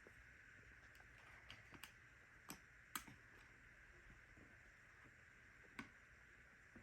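Small plastic clicks and taps, about six scattered over several seconds with the loudest about three seconds in, from handling a Shark IQ robot vacuum's filter housing with a screwdriver; otherwise near silence.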